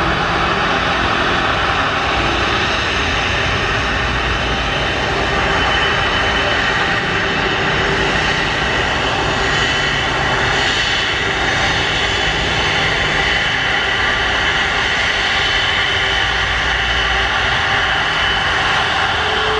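Airbus A330 jet engines running loud and steady, a dense even noise with a faint whine in it, as the airliner takes off.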